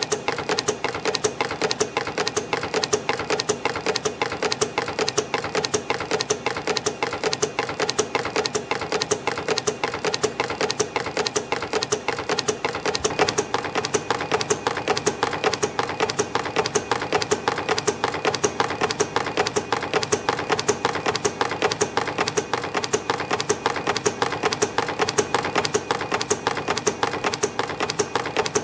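YHM CT-208 micro CNC spring machine running in production, forming torsion springs from 0.5 mm wire: a fast, even mechanical clatter of several sharp clicks a second over a steady hum.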